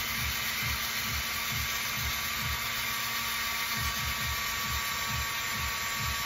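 Handheld rotary tool running steadily with a high whine, its bit grinding into the hard coconut shell.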